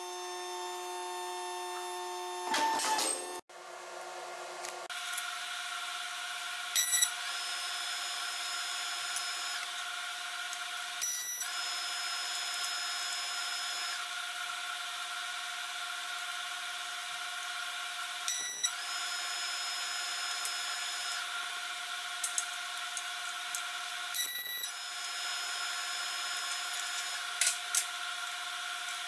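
Sheet aluminum pieces handled on a steel fixture table, giving occasional light clinks and clicks over a steady shop hum. About three seconds in there is a short louder burst as a strip of aluminum is cut in a metal shear.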